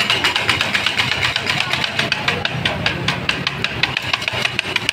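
Motorcycle engine idling, with a rapid, even ticking.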